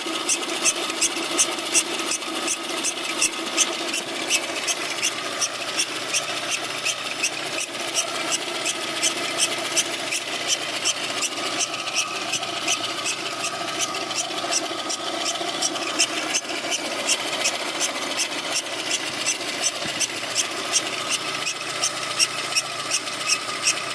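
The timing-belt tensioner roller (a Gates reinforced roller) on a running VAZ-2108 engine whistles steadily, with a regular ticking about two to three times a second over it. The whistle is the sign of a failing tensioner roller bearing, after only about 10,000 km.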